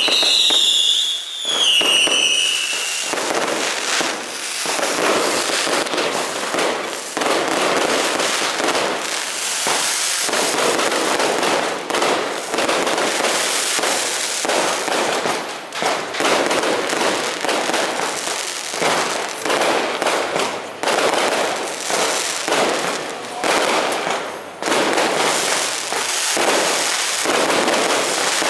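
Fireworks going off: a couple of whistling shells with falling whistles in the first few seconds, then a dense, continuous crackle of rapid bangs that keeps going.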